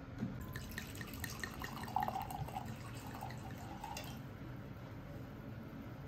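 Red wine poured from a bottle into a wine glass, a quick run of glugs about five a second that stops about four seconds in.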